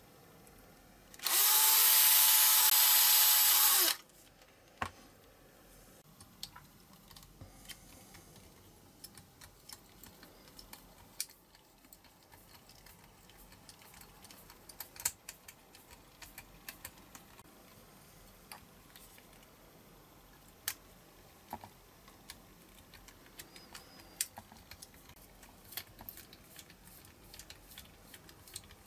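Cordless drill running steadily for about three seconds, starting a second or so in, as it drills into a small model car part. After that come only scattered light clicks and taps from handling the part.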